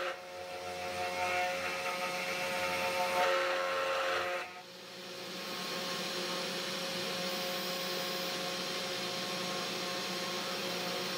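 Desktop CNC router's spindle running steadily with its whine while a two-flute end mill cuts acrylic plastic. The cutting sound drops off sharply about four and a half seconds in, and the machine runs on more evenly after that.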